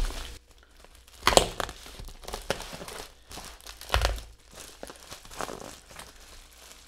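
Plastic bubble wrap crinkling and rustling as it is pulled open by hand to unwrap a glass, with louder crackles about a second in and about four seconds in.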